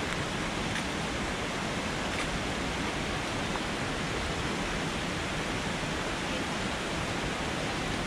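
Fast mountain river rushing steadily, a dense even wash of water noise with no let-up.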